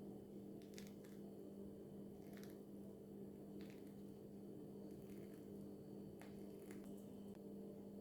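Near silence: a faint steady hum with a scattering of faint light clicks.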